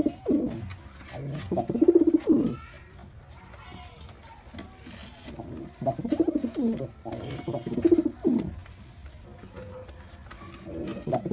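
Male domestic pigeon cooing in repeated low bouts, with a quieter gap of a few seconds in the middle.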